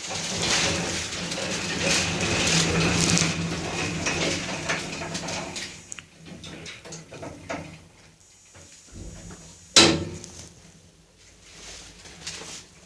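Sliding door of a new large passenger lift creaking and grinding as it moves for about six seconds. A single sharp bang follows a little under ten seconds in.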